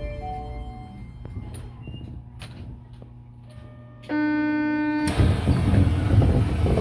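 The last notes of a station departure melody, then a steady electronic buzzer tone lasting about a second, the door-closing warning of an Osaka Metro New Tram train. It cuts straight into a loud rushing noise.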